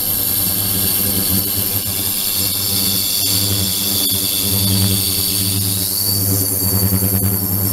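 A 72 kHz ultrasonic tank runs under the bottle with a steady buzzing hum and several high whistling tones, which begin to shift in pitch about six seconds in.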